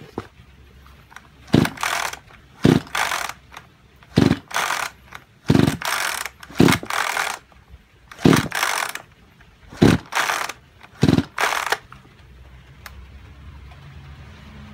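Recoil starter of a Kyoritsu chainsaw pulled about eight times in quick succession, each pull a short whirr of the rope and the cranking engine. The engine never fires: it does not start, a fault the owner puts down to low compression from a seized engine.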